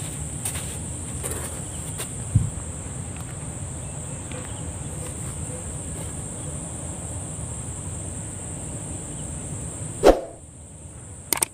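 Steady high-pitched drone of insects over a low rumble, with a thump about two seconds in and a sharp knock near the end, after which the insect drone cuts off abruptly.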